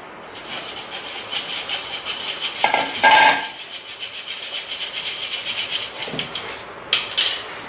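Flour being worked through a hand sieve over a steel saucepan, fingers rubbing and tapping the mesh in a quick scratchy rhythm, with a louder clatter about three seconds in and a short knock near the end.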